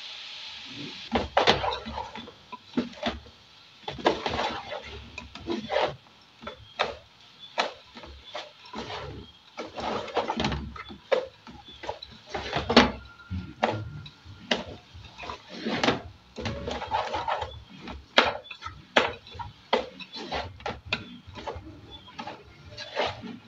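Wooden spoon stirring shredded cabbage in a metal pot: irregular scraping and rustling strokes, with now and then a sharp knock of the spoon against the pot.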